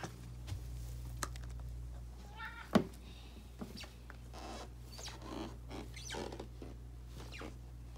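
A domestic cat gives a short meow about two and a half seconds in, followed at once by a sharp thump, the loudest sound. Soft footsteps and faint further cat calls follow as someone walks down carpeted stairs in slide sandals.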